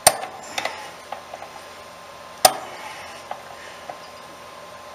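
Pliers clicking and snapping against copper refrigerant tubing as it is tightened: a few sharp metallic clicks, the loudest about two and a half seconds in, with fainter ticks between.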